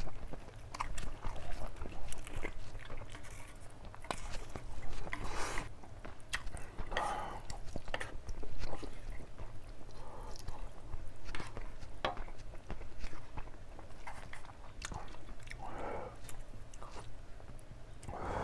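A person eating close to the microphone: chewing and biting, with many sharp wet mouth clicks and some crunchy bites.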